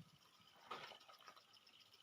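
Near silence, with one faint short rustle about three-quarters of a second in.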